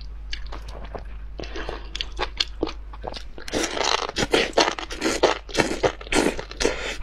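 Mouth sounds of eating spicy enoki mushrooms in chili oil: wet chewing with short crunchy clicks, becoming denser and louder about halfway through as a big mouthful of the strands is slurped in and chewed.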